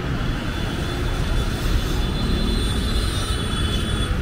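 Steady low rumble of street traffic, with a faint thin high-pitched whine joining about halfway through.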